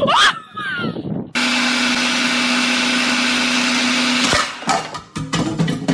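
A short rising squeal, then a small motor running steadily with a constant hum for about three seconds, cutting off abruptly and followed by a run of clattering knocks.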